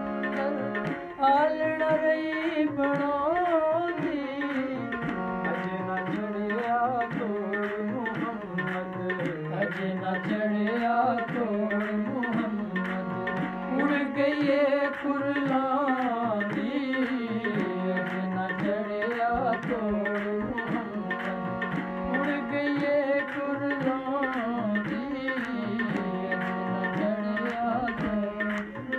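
Harmonium playing a melodic interlude over a steady tabla rhythm. Above its held notes, a melody line slides and wavers between pitches.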